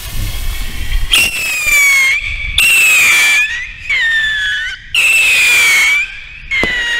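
Funke 3-stage whistling rockets (Triller) going up: about a second of fuse sparking, then five loud screeching whistles in a row. Each lasts about a second, sags slightly in pitch and is cut off by a short gap as one whistle stage after another burns out on the ascent.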